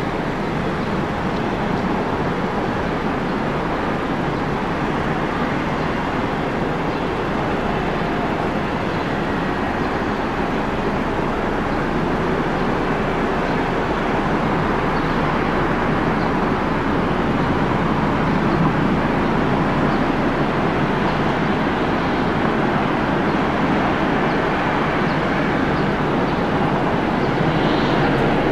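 Jet aircraft engine noise at an airport: a steady rumble with a faint whine, slowly growing a little louder over the second half.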